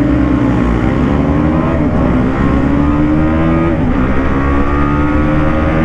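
Motorcycle engine at full throttle under hard acceleration, its pitch climbing in each gear and dropping at upshifts about two and four seconds in.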